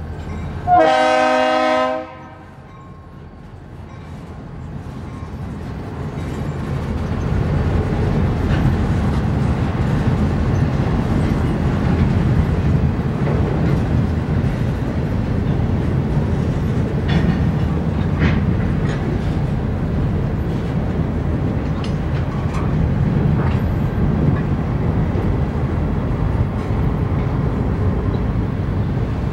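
Freight train horn sounding one blast of about a second, several tones at once, near the start. Then the train's freight cars roll past in a steady rumble of wheels on rail, building over the next few seconds, with occasional clicks.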